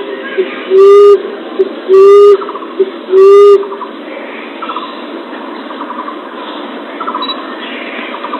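Common emerald dove (punai tanah) cooing: three loud, low coos about a second apart, which stop about halfway through. A steady hiss with faint high chirps remains.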